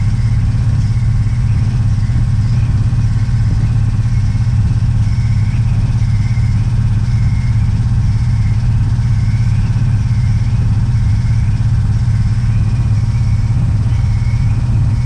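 Antique Otto Bernz pump-pressurised gasoline blowtorch burning with a steady low rumble while its flame heats a radiator seam to melt solder.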